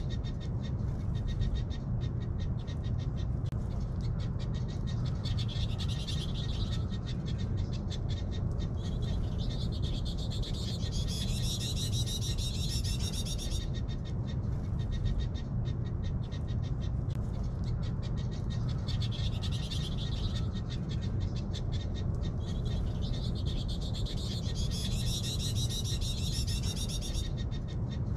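Outdoor ambience: a steady low rumble under high, rapid trilling animal calls that swell every few seconds.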